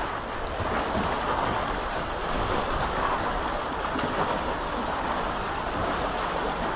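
Choppy river water lapping and splashing against a kayak and a concrete wall, with wind buffeting the microphone as a low rumble.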